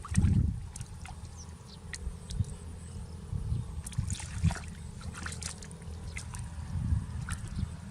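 Water sloshing and splashing in the shallows, with scattered small clicks and splashes over a low rumble. There is a louder swell just at the start.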